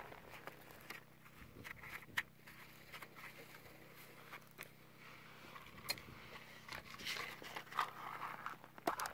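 Gravel and dirt being worked on a hand sifting screen: scattered clicks and gritty scraping of small stones, getting busier in the last couple of seconds.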